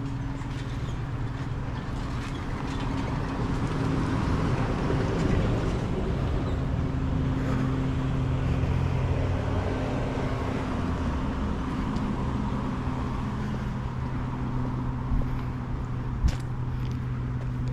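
A motor vehicle drives past on the road: a low engine hum with tyre noise that swells to a peak about five seconds in, then slowly fades. A few sharp ticks come near the end.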